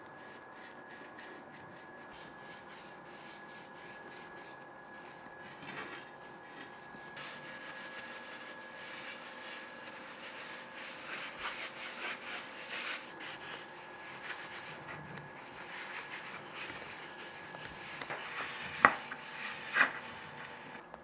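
Wood being rubbed by hand: irregular scraping strokes that grow busier from about a third of the way in, over a faint steady hum. Two sharp knocks come near the end, the first the loudest sound.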